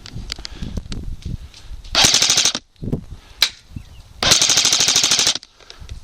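Airsoft gun firing two rapid full-auto bursts, a short one and then a longer one, with a single sharp crack between them.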